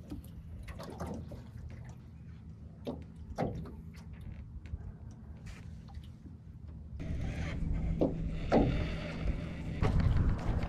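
Water slapping against an aluminum fishing boat's hull, with scattered light knocks. About seven seconds in the sound turns louder, with a steady low motor hum under splashy water noise.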